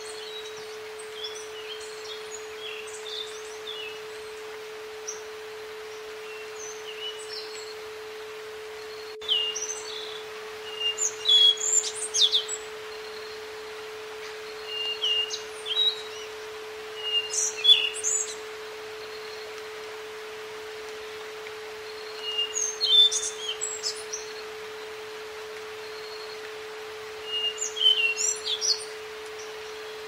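A steady pure tone held at one pitch, the carrier of an isochronic-tone track, under a recording of wild birds chirping and calling. The birdsong is sparse at first, then comes in about five louder bursts from about a third of the way in, over a faint steady hiss.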